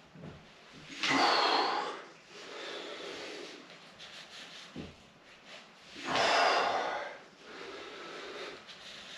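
A man breathing hard while exercising: two loud, forceful exhales about five seconds apart, one with each rep, each followed by a quieter breath in.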